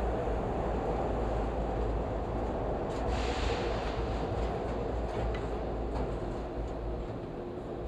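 Toronto subway train running, a steady rumble of wheels on rail, with a brief hiss about three seconds in.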